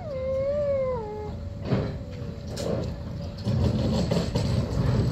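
A dog whines in a long, wavering, falling cry during the first second or so. From about two seconds in, a narrow-gauge steam locomotive approaches slowly, its chuffing and steam hiss growing louder.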